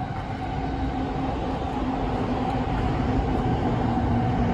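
Electric train passing, its rumble growing steadily louder, with a steady hum running through it.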